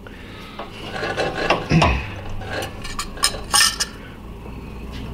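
Broken glass of a vacuum tube's envelope scraping and clinking as shards are worked loose by hand from around the tube's base, with several sharp clinks about halfway through.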